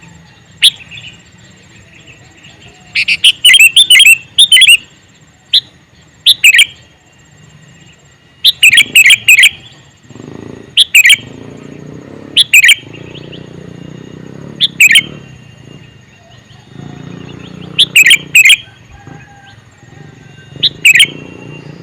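Male sooty-headed bulbul (kutilang) calling: loud, short bursts of sharp, quick chirping notes, repeated every two to three seconds.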